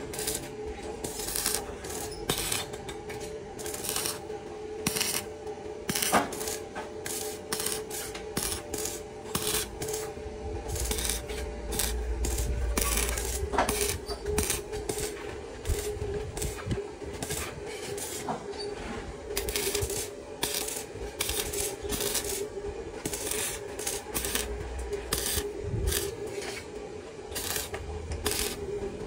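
Metalwork on iron railing parts: repeated metal clinks, knocks and scraping strokes at an uneven pace over a steady hum.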